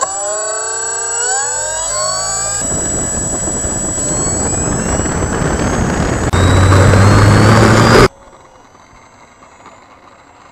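Electric RC model airplane's brushless motor and propeller heard from the onboard camera: a whine rising in pitch over the first two seconds as the throttle opens. Then comes a loud rushing of propeller wash and wind over the airframe. About eight seconds in the sound cuts suddenly to a much quieter, faint hum.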